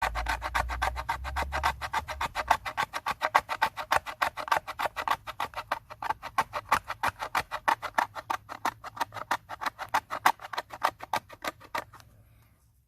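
Intro music with a fast, even percussive pulse of about six strokes a second, over low bass notes in the first couple of seconds; it stops just before the end.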